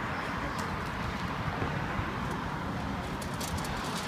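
Loaded shopping cart rolling over asphalt, its wheels giving a steady rumble, with a few quick rattling clicks about three seconds in.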